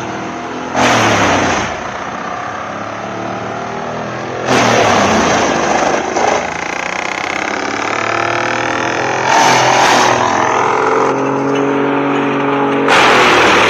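Wood chipper's engine running steadily under load, broken four times by a loud, harsh rush about a second long as a log is fed in and shredded.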